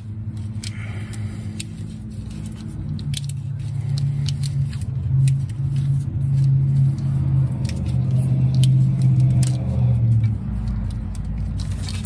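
Electrical tape being unrolled and wrapped around a car's wiring harness: scattered clicks and crackles from the roll and the wires being handled. Under it a low rumbling hum grows louder through the middle and stops about ten seconds in.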